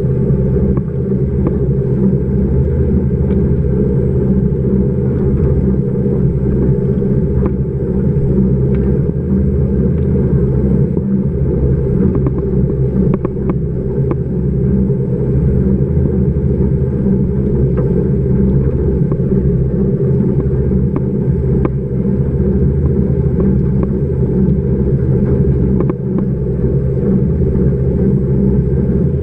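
Underwater treadmill for dogs running, heard through a camera below the water: a steady low rumble and hum, with faint scattered ticks.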